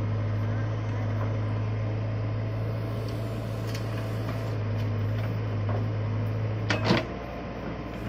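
Case 770EX backhoe loader's diesel engine running steadily with a low hum while it works, with a brief loud clatter about seven seconds in.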